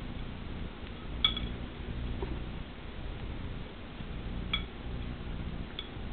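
A few short, light clinks with a brief ringing tone: the loudest comes about a second in, and two fainter ones come near the end, over a low steady hum.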